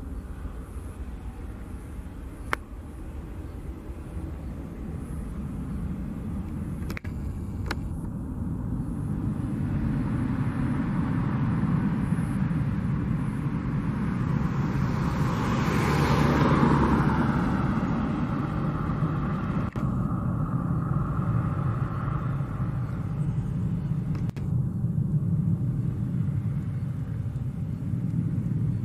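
Boeing 737-800's CFM56-7B turbofan engines at takeoff power as the jet climbs out and banks away: a steady jet rumble that swells to its loudest about halfway through, with a falling sweep in the hiss, then slowly fades.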